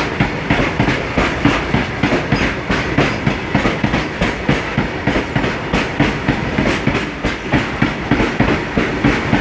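Train wheels clattering over the rail joints while running, a steady rumble broken by quick repeated knocks several times a second.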